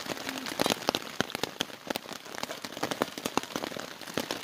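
Steady rain falling, with many large drops striking a nearby surface in quick, irregular taps.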